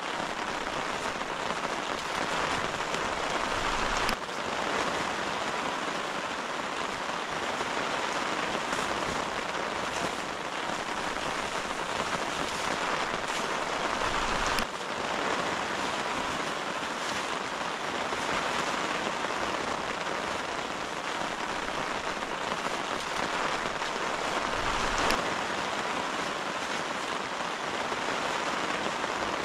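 Steady heavy rain drumming on the tent fabric, an even hiss, with a few brief knocks.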